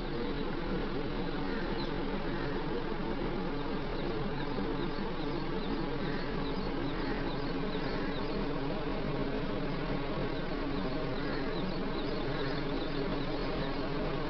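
Steady outdoor insect drone, with faint high chirps running through it.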